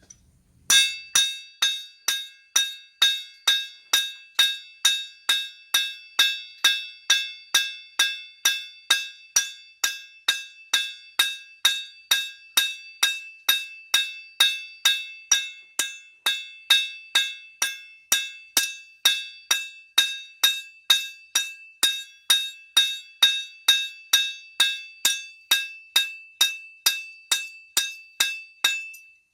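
Hand hammer cold-forging a thick bar of Zapp Z-Tuff tool steel on an anvil: steady, even blows about two a second, each a sharp clang followed by a high ring from the unheated steel and anvil. The blows begin about a second in.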